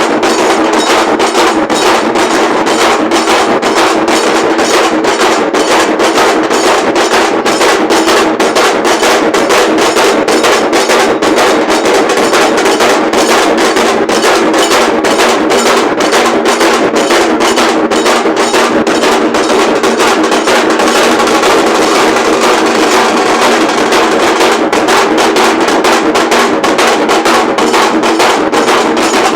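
Dhol drum band playing a loud, dense, fast drumbeat without a break.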